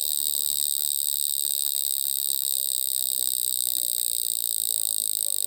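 Cricket-chirp alarm tone playing from a phone: a steady, high-pitched chirring trill.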